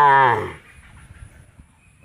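A young calf mooing: the end of one long call that drops in pitch and stops about half a second in.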